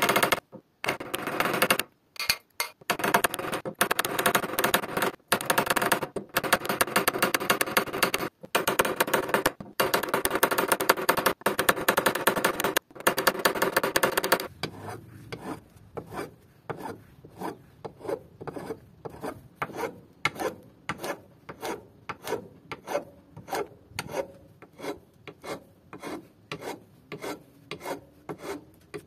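A small hammer tapping rapidly on metal rivets set through an oak axe handle, peening their heads over, in quick runs with short pauses. About halfway through this gives way to a flat file stroking across the oak handle, quieter, at about two strokes a second.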